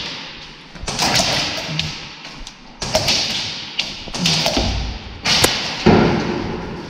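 About five heavy thuds roughly a second apart, each trailing off over about a second in an echoing rush of noise.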